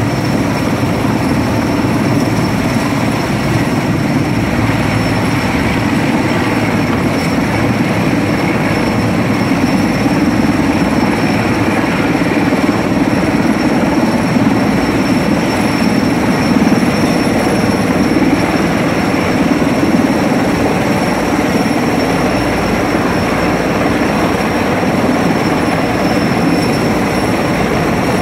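Sikorsky S-64 Skycrane heavy-lift helicopter hovering low overhead with a lifting frame slung beneath it: a loud, steady rumble of rotor and turbine engine noise, with a thin high turbine whine over it.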